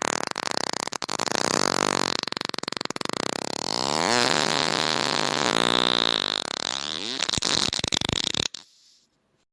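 One long fart sound: a rapid rasping flutter whose pitch wavers up and down, lasting about eight and a half seconds before it cuts off.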